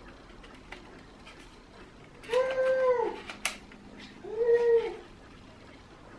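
A pet animal calls twice, each call drawn out under a second and rising then falling in pitch, about two seconds apart. A single sharp click falls between the two calls.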